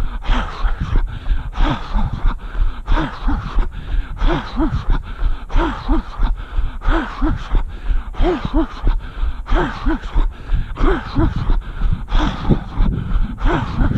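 A runner's heavy, rhythmic breathing: voiced panting breaths coming in pairs, over the steady beat of his footfalls on the road.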